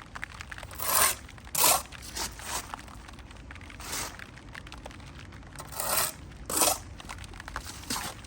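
About seven short scraping strokes of a hand tool on brick or mortar, several of them in pairs, the loudest about a second and a half in and near the end.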